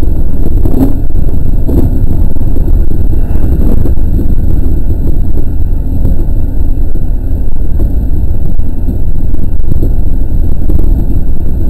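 207 series electric train running along the track, heard from the cab: a loud, steady low rumble, with a couple of short knocks in the first two seconds.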